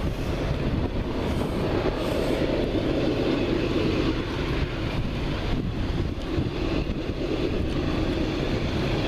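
An approaching freight train's diesel-electric locomotive running, heard as a steady low rumble, with wind on the microphone.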